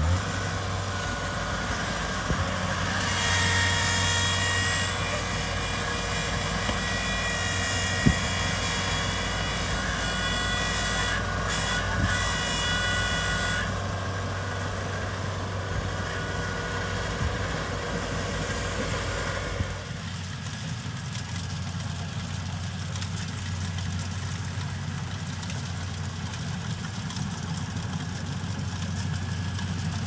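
Kubota DC-70 combine harvester's diesel engine running steadily under harvesting load, with a high-pitched whine from about 3 to 13 seconds and a single sharp knock about 8 seconds in. About 20 seconds in, the sound changes abruptly to the quieter, thinner hum of a combine's engine further away.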